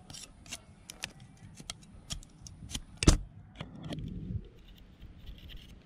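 A bar prising and chipping at lightning-damaged fibreglass on the underside of a boat hull: a run of sharp clicks and taps, with one loud knock about three seconds in, and broken pieces crumbling away just after.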